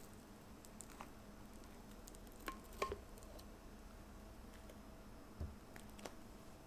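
Faint handling sounds of a baked cheesecake being lifted out of a metal loaf pan by its parchment paper: a couple of light clicks with a short ring about two and a half to three seconds in, then a soft thud about five seconds in as it is set down on a plate.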